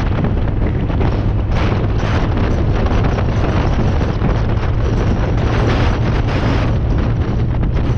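Wind rushing over the microphone while a sport motorcycle rides at road speed, with the engine's steady low hum underneath; the wind noise swells and eases in gusts.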